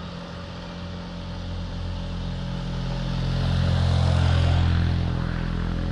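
A motorcycle engine runs at a steady pitch, growing louder over a couple of seconds to a peak about four seconds in, then easing off a little.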